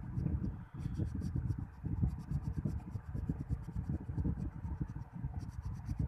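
A pink coloured pencil scratching across paper in quick back-and-forth shading strokes.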